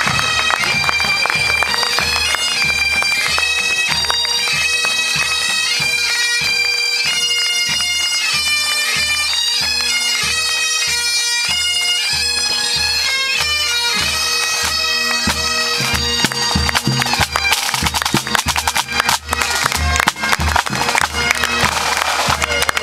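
Pipe band marching past: bagpipes playing a tune over their steady drones, with a drum beating about twice a second. Near the end the pipes fade and clapping comes up.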